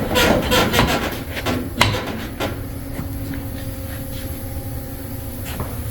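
Metal pump cylinder being worked and slid out of its pump frame: a run of scraping and clicking for about the first two and a half seconds, with one sharp click near two seconds, then only a faint steady hum.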